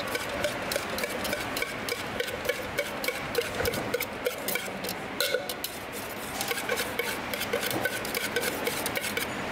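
Sliced green amra (hog plum) and spice masala being shaken in a hand-covered steel cup to mix them: a continuous run of quick clicks and rattles of fruit pieces against the metal.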